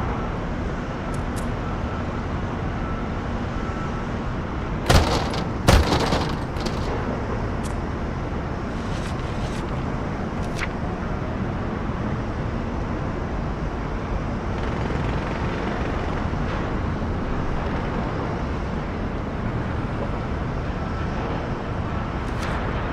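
A steady noisy background rumble, with two loud bangs close together about five seconds in and a few faint clicks.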